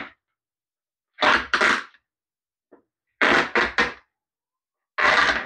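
Old vinyl upholstery cover being ripped off a cooler seat lid and torn away from its staples instead of de-stapling it. There are three short tearing rips, each in two or three quick pulls.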